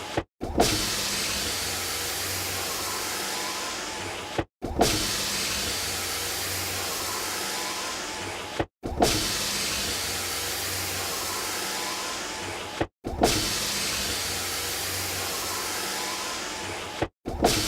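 Car power window motor running in repeated strokes of about four seconds each, every stroke ending in a brief silence and the next starting with a sharp clunk.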